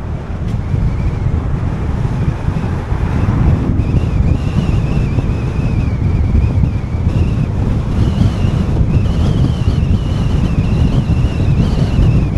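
Wind rumbling on the microphone of a moving car, with road noise, and a faint, wavering high whine from about half a second in.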